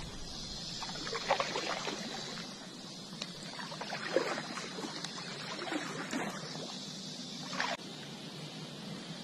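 Kayak paddle strokes: the blade dipping and pulling through the water, with irregular splashes and drips off the paddle.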